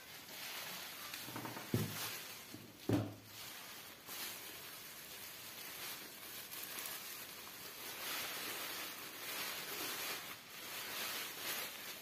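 Plastic bubble wrap crinkling and rustling as it is pulled off a box and crumpled by hand, with two thumps about two and three seconds in.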